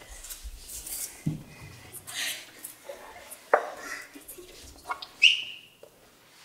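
Scattered small knocks, clicks and rustles in a quiet hall, with a louder knock about three and a half seconds in and a short high squeak that falls in pitch about five seconds in.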